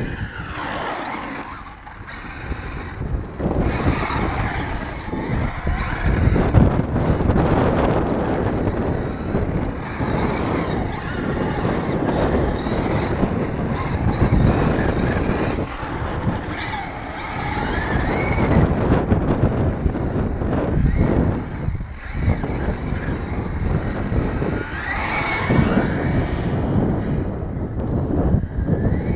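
1:8 scale RC rally car with a brushless electric motor, whining up and down in pitch as it speeds up and slows down on asphalt, with wind noise on the microphone.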